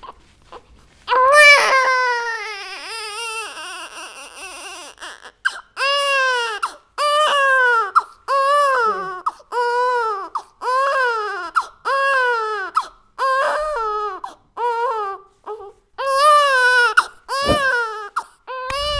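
Baby crying hard: one long wail about a second in, then a steady run of short, rising-and-falling cries about once a second with quick breaths between.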